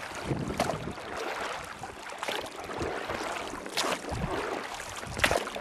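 Water splashing and lapping around a small boat, with wind on the microphone; a sharper splash or knock comes about every second and a half.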